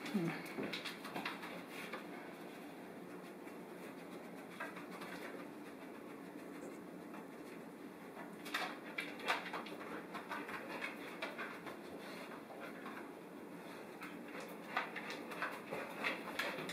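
A dog's nails clicking on a vinyl kitchen floor as it moves about searching, with a few louder clicks in the middle and near the end, over a low steady hum.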